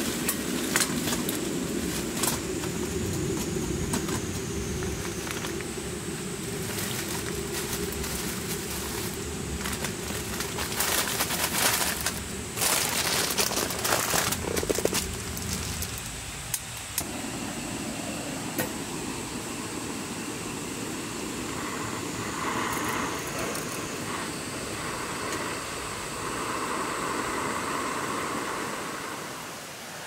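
Lumps of charcoal tipped from a crinkling bag into a small stainless-steel grill box: rustling and clattering knocks, loudest in a burst a little before halfway, then settling to a steadier rustle.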